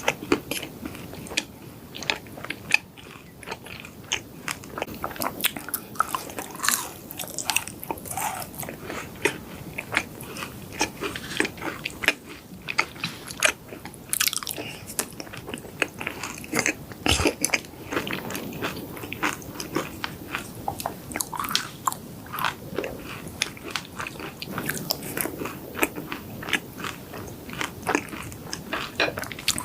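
Close-miked eating of yakgwa, Korean honey-glazed fried cookies: repeated crunchy bites and chewing, full of small irregular clicks and crackles.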